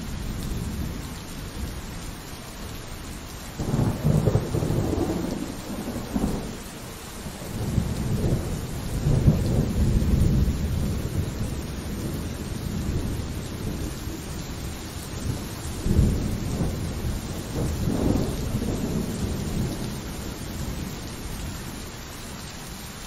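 Steady rain with rolling thunder. A sudden clap comes about four seconds in, a long low rumble runs through the middle, and another crack of thunder comes about sixteen seconds in.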